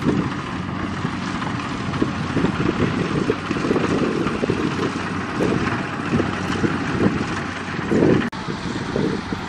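Single-cylinder diesel engine of a two-wheel walking tractor running under load with an uneven low chugging, as it drags a trailer through sticky mud.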